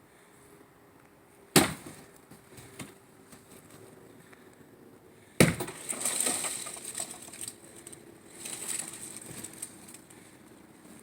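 Two hard blows smashing a water heater's packing box, about four seconds apart. The second is followed by a few seconds of crunching and crackling as the box breaks up.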